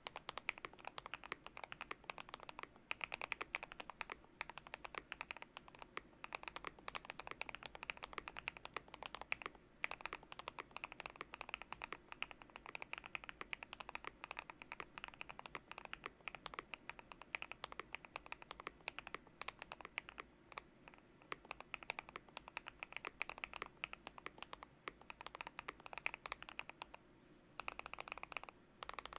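Continuous typing on a GMK67 mechanical keyboard with lubed Gateron Smoothie linear switches in a tape-modded, foam-filled build: a fast, steady run of key presses, with a short pause near the end.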